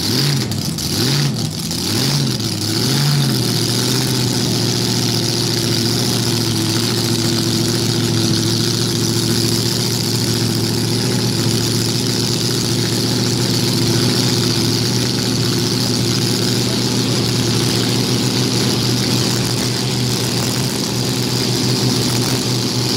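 Car engine blipped about four times in quick succession, then settling into a steady idle.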